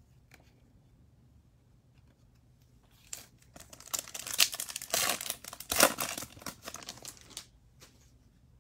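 The wrapper of a 2023 Topps Chrome baseball card pack being torn open and crinkled by hand. The crinkling starts about three seconds in and lasts some four seconds.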